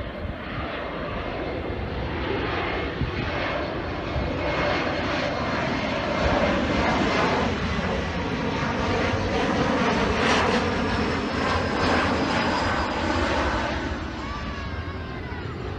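Embraer regional jet passing low overhead on landing approach with its gear down: jet engine noise swells to a peak midway and then eases off, with a high engine whine that drops in pitch as the aircraft goes by.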